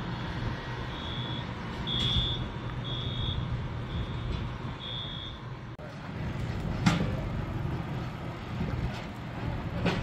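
Fire truck idling with a steady low engine hum, over a short high electronic beep repeated about once a second, the kind a reversing alarm gives; the beeping stops about five seconds in. Two sharp knocks follow, one about seven seconds in and one at the very end.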